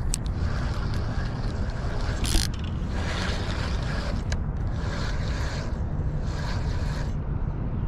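Wind buffeting the microphone, with a spinning reel being cranked to wind in fishing line and a few light clicks from the reel.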